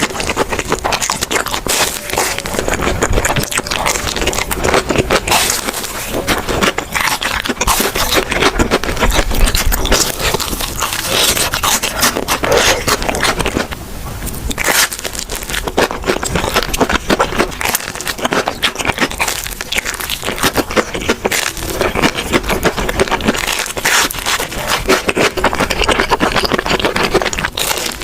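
Close-miked, loud crunching and chewing of crispy fried food, a fried corn dog being bitten and chewed in quick, irregular crackles.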